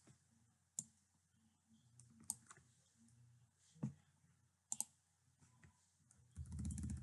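Faint, sparse clicks from a computer mouse and keyboard, four or five of them spread about a second apart, with a short low rumble near the end.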